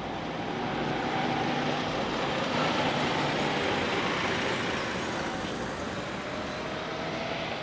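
Road traffic: a car engine passing by over a steady traffic hum, growing louder about a second in and easing off toward the end.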